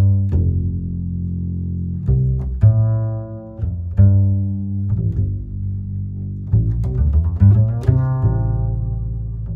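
Instrumental background music carried by low string notes, with a new note or chord every second or so.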